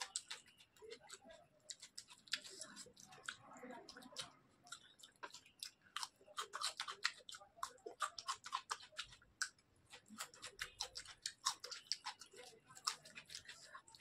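A person chewing with the mouth open while eating rice and fish curry by hand, making many quick smacking clicks. The clicks come thicker in the second half.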